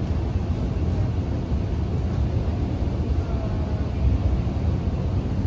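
Steady low rumble inside a CRRC Qingdao Sifang Q-Train electric multiple unit running through a tunnel, heard from inside the passenger car.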